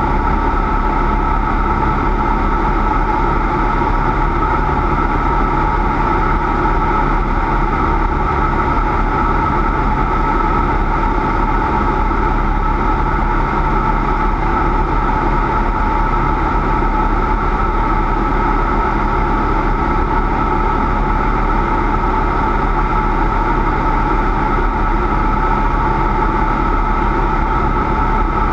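Cessna 172's piston engine and propeller running steadily, with no change in pitch or level.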